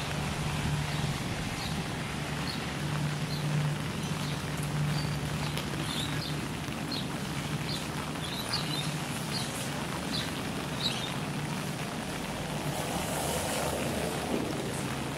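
Outdoor street ambience: a steady low hum runs under short, high bird chirps that repeat every half-second or so. About twelve seconds in, a brief hiss swells and fades.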